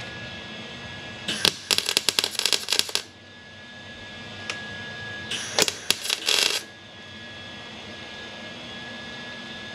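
Wire-feed (MIG) welder arc crackling in two short bursts of about a second and a half each, laying weld on thin sheet-metal patches to fill pinholes. A steady hum runs underneath.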